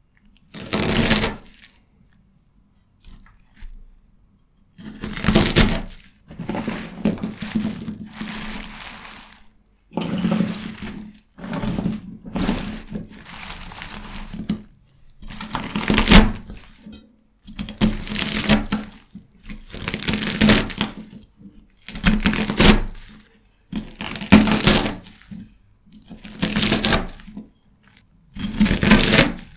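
Knife cutting through fresh celery stalks: a crisp crunch with each cut, repeating about every one and a half to two seconds, after a short lull near the start.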